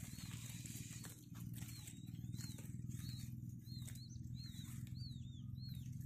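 Newly hatched quail chicks peeping: short, high, thin calls that rise and fall, a few at first and then about two a second from about a second and a half in, over a steady low hum.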